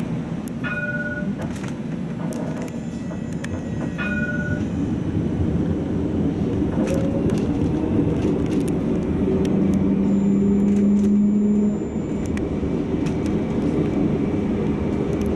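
Catenary-free light-rail tram running, heard from the driver's cab: a steady rumble of wheels on rail and running gear. Two short electronic chimes sound about one and four seconds in. A low hum joins about nine seconds in and cuts off abruptly near twelve seconds.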